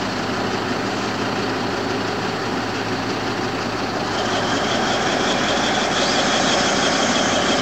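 Caterpillar D11 bulldozer's diesel engine running steadily, a little louder from about four seconds in, with a faint high whine joining it.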